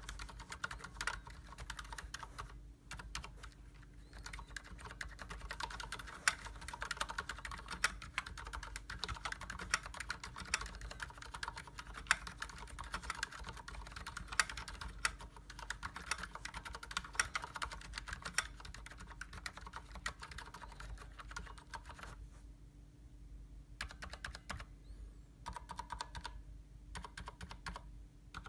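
Steady, fast typing on a COX Dauntless mechanical keyboard with Cherry MX Silent Red linear switches, the switches and stabilizers unlubricated: a dense run of keystroke clicks that breaks off briefly near the end and then resumes.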